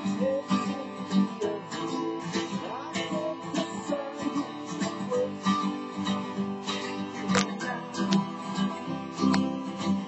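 Taylor 12-string acoustic guitar strummed, playing chords in a steady rhythm.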